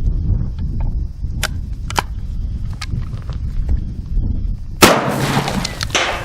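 A single shotgun blast from a 3-inch Magnum shell, about five seconds in, ringing on briefly. Before it, wind rumbles on the microphone and there are a few light clicks.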